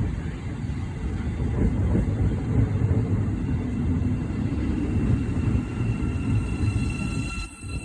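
Passenger train on the track with a steady low rumble, which drops away about seven and a half seconds in.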